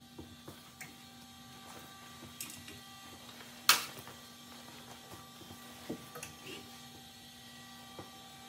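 Clothes hangers clicking and clacking on a closet rod while a jacket is hung up, with one sharp clack about four seconds in and a few lighter knocks later. A faint steady hum runs underneath.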